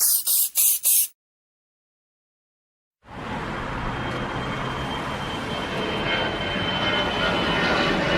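Four quick, loud bursts of noise within the first second, then about two seconds of silence, then a steady vehicle rumble that slowly grows louder.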